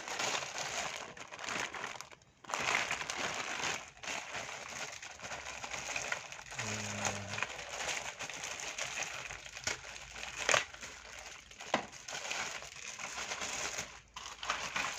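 Plastic packaging crinkling and crackling as a toy puzzle is unwrapped, with a couple of sharper snaps partway through.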